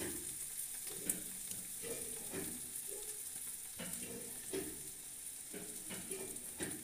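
Chopped gourd sizzling in hot oil in a steel kadhai, a steady frying hiss, with a spatula scraping and knocking against the pan about six times as it is stirred.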